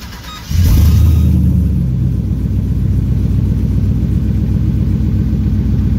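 A G-body El Camino's swapped GM V8 starting up: a loud surge about half a second in, then a steady rumbling idle that settles from a fast start-up idle to a lower one.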